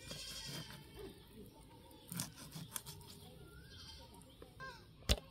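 Skinned chicken being cut into pieces on a curved boti blade, giving a few sharp clicks and knocks, the loudest near the end. A short animal call comes at the start.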